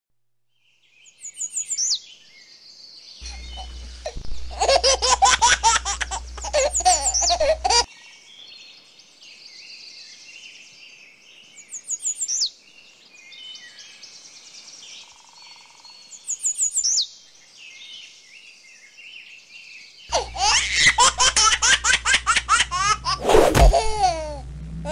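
Two stretches of baby laughter, each starting and stopping abruptly, with high bird chirps and twittering in between. A brief sharp sound comes near the end.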